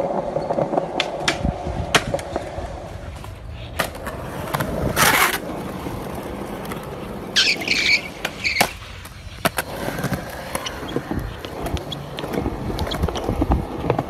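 Skateboard wheels rolling on concrete, broken by sharp clacks of the board, a loud scrape about five seconds in, and high squealing for a moment around eight seconds.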